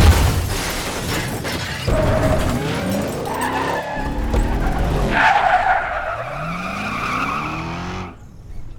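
A loud crash at the start, then a Dodge Challenger's engine revving up several times with rising pitch while its tyres skid and squeal. The sound drops away shortly before the end.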